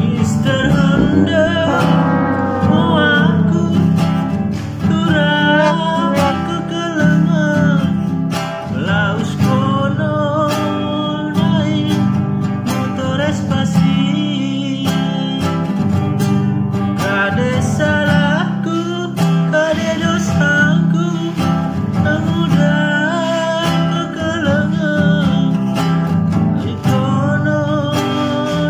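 Acoustic guitar strummed in chords, with a man's voice carrying the melody of a Pakpak song over it. The voice slides down in pitch about two seconds in.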